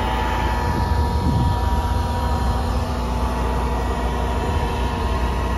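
Farm machinery engine running steadily: a low rumble with a steady whine above it.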